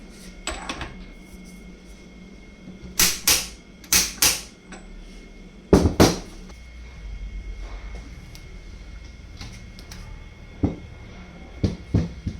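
Sharp knocks and clicks of small metal parts and tools being handled and set down, many coming in quick pairs, the loudest pair about six seconds in, over a faint steady hum.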